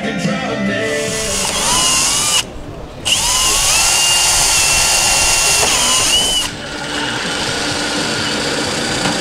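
Cordless drill boring into a timber spacer block, running in two goes: a short burst, then after a brief pause a longer steady whine of about three seconds that spins up at the start and winds down at the end.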